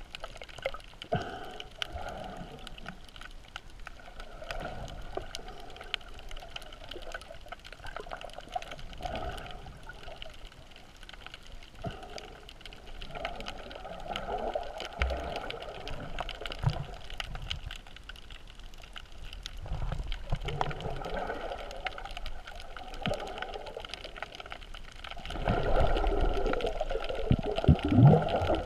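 Muffled sloshing and gurgling of sea water, heard through a GoPro's underwater housing, with small clicks and crackles and swells that grow louder near the end.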